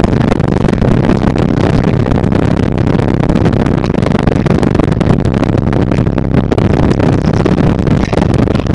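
Loud, bass-heavy music played through six FU Audio 15-inch subwoofers on a DB Drive 3500 amplifier, the low end filling the sound steadily.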